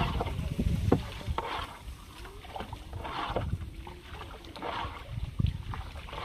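Wooden dugout boat being paddled through shallow, weedy wetland water: a swish of water with each stroke, about every second and a half, over low knocks and thumps.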